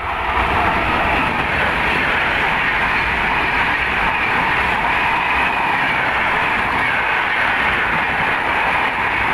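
Indian Railways WAP-5 electric locomotive passing close by at speed, followed by its passenger coaches rushing past. Wheels on rail and rushing air make a loud, steady roar that swells within the first moment as the locomotive goes by.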